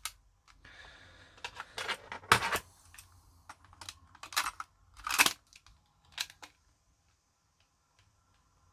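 Transport buttons of an Aiwa HS-T120 personal cassette stereo being pressed: a series of sharp mechanical clicks and clunks, the loudest about five seconds in, with a brief faint whirr of the tape mechanism running early on between clicks.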